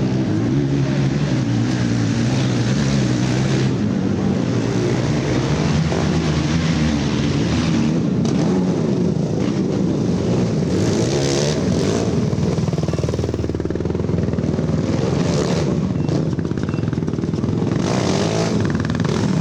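Racing ATV engines revving, their pitch rising and falling with the throttle.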